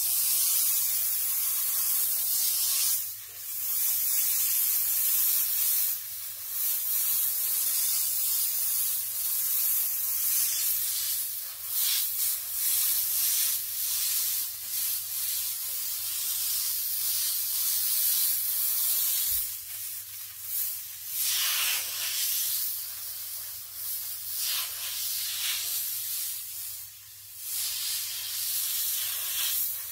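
Airbrush spraying paint in a steady hiss of air, dropping away briefly several times as the spraying eases off.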